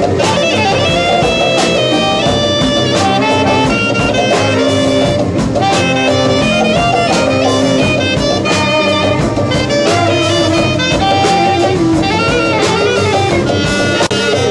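A small live band playing jazzy music: a saxophone carries the melody over a drum kit and a small plucked string instrument.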